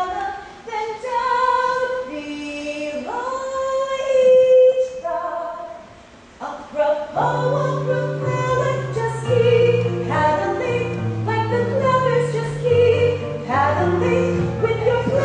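Female solo voice singing a stage-musical ballad, amplified live in a theatre. A fuller accompaniment with a low bass line comes in about seven seconds in.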